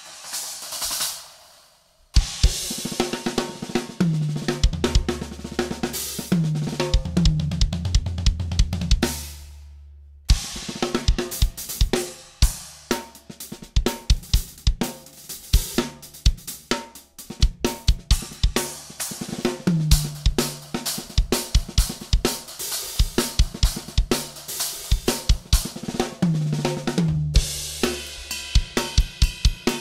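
Drum kit with Kingdo Dry Series cymbals being played. A cymbal rings out and fades over the first two seconds. Then comes a groove of bass drum, snare and cymbals with tom fills, breaking off briefly about ten seconds in.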